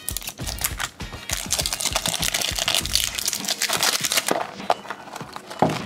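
Plastic wrapping of a toy surprise ball being peeled and handled, a rapid run of crinkling clicks that thins out about halfway through.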